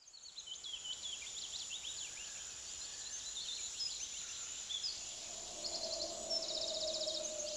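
Woodland birdsong: many small birds chirping and singing, with a rapid trill about two-thirds through, over a steady high hiss. Near the end a low held musical note comes in.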